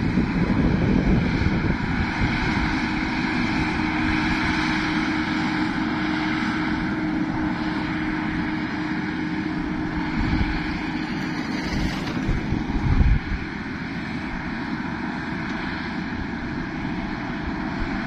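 New Holland 8070 combine harvester running steadily while it cuts standing wheat, a continuous mechanical drone, with wind buffeting the microphone and one stronger gust about 13 seconds in.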